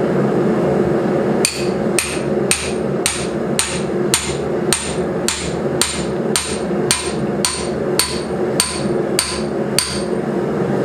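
Hand hammer striking a steel drift about sixteen times at an even pace of roughly two blows a second, each hit ringing, as the large drift is driven through a lubricated hole in hot steel. A steady drone runs underneath.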